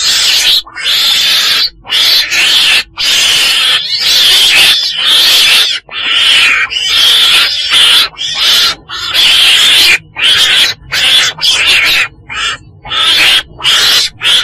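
Weasel (chồn đèn, Mustela) calling, the call used as a trapping lure: a close run of about a dozen raspy, noisy calls, each half a second to a second and a half long, with short breaks between.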